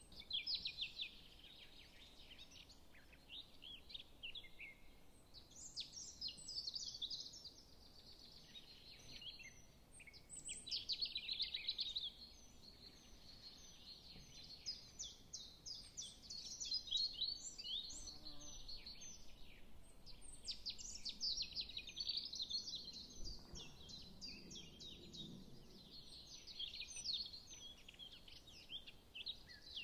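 Small birds chirping and twittering without pause, a busy stream of short high calls that swells and fades in strength.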